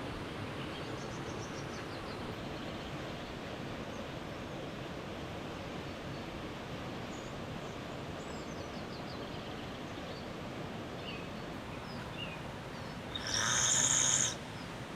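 Steady outdoor forest background noise with faint bird chirps and trills now and then. Near the end comes a louder, high-pitched sound lasting about a second.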